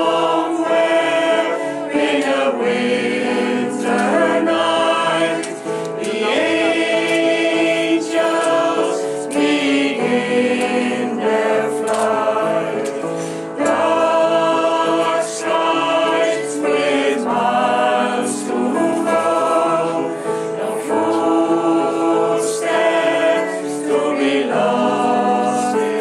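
Mixed choir of men's and women's voices singing in parts, phrase after phrase, with brief breaths between the lines.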